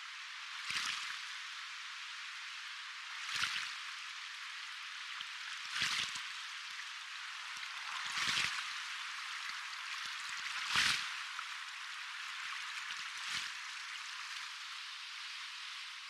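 Soft ocean waves: a steady hiss of water with little low end, swelling about every two and a half seconds as small waves wash in, six times.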